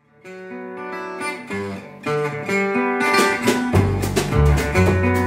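Live acoustic band music: an acoustic guitar picks out notes on its own at first, and about three seconds in the fuller band comes in, with low double-bass notes and a steady strummed rhythm.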